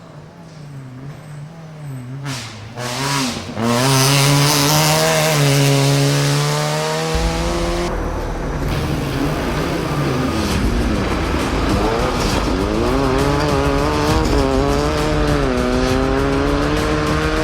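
Rally car engine at high revs, growing louder over the first few seconds, its pitch climbing and dropping again and again through gear changes and throttle lifts. About eight seconds in the sound changes, as to another car or another pass at full throttle.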